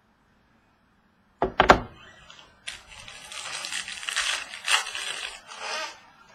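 Two sharp knocks, then about three seconds of crackling, crinkling and tearing: a sealed box of trading cards being handled and its wrapping torn open.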